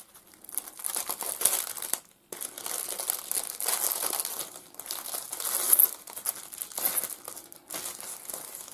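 Clear plastic packaging of a rolled diamond painting kit crinkling and rustling as it is handled and pulled open, with a short pause about two seconds in.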